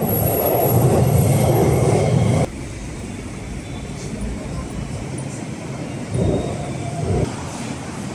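Train running with a heavy low rumble that cuts off abruptly about two and a half seconds in, leaving a quieter steady background with a brief swell near the end.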